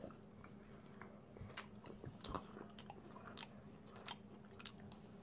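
Faint mouth sounds of chewing a macaron, with small crisp ticks scattered through it from the crunchy shell.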